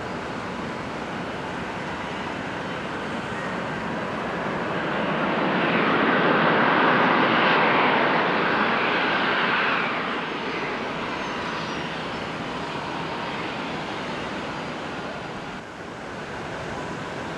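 Boeing 737 jet engines passing on the runway just after landing: a rushing jet noise that swells over a few seconds, peaks, then fades, over a steady background of jet hiss.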